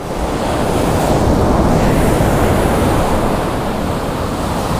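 Ocean surf breaking and washing up a sandy beach: a loud, steady rushing hiss that swells about a second in.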